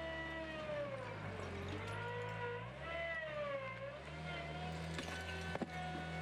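Skid steer loader running with a diesel engine hum and a hydraulic whine, both dipping in pitch twice as the engine is loaded and then recovering; a couple of short knocks near the end.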